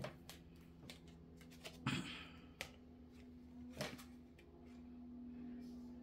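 Faint, scattered clicks and taps of small objects being handled, about half a dozen, the loudest about two seconds in, over a low steady hum.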